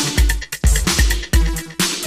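Electronic background music with a steady, driving beat of sharp drum hits over a deep bass.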